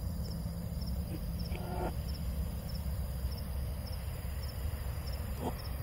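Crickets chirping in a steady rhythm, a little under two chirps a second, over a steady low hum. Two faint, brief pitched sounds come through, one about a second and a half in and one near the end.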